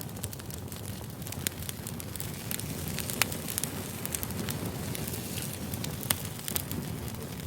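Firewood burning in a fire: a steady low rumble with many sharp crackles and pops scattered irregularly through it.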